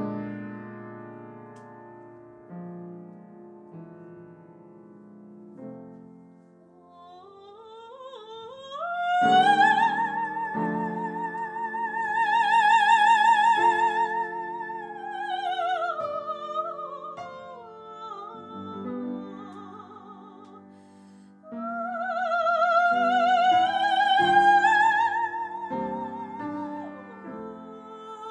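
A woman singing opera, accompanied by an upright piano. The piano plays alone at first. About seven seconds in the voice enters and climbs to a long high note with wide vibrato, then falls away. After a short piano passage the voice rises again.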